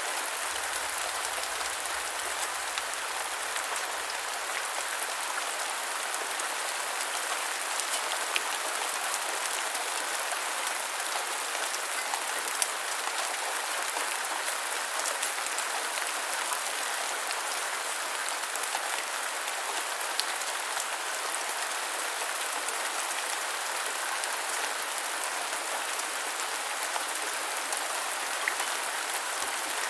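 Steady light rain falling, an even hiss with scattered ticks of single drops.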